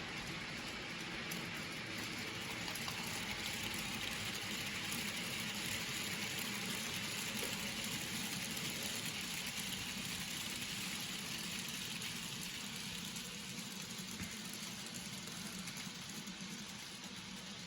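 N gauge model train running on the layout: a steady whirring rush of the motor and the wheels on the rails. It grows louder a few seconds in and fades toward the end, as if passing close by.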